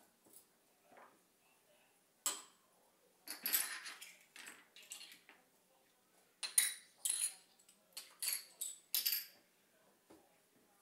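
Small hard objects clinking and knocking as they are handled and set down: one sharp knock a couple of seconds in, a short rattle, then a run of quick clinks in the second half.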